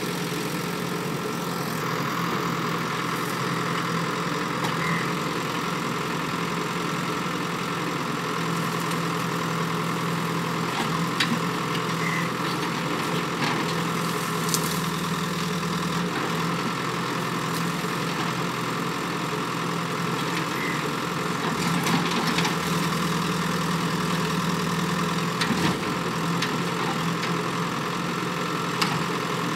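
JCB backhoe loader's diesel engine running steadily while the backhoe digs, with deeper, heavier stretches now and then. A few short sharp knocks stand out.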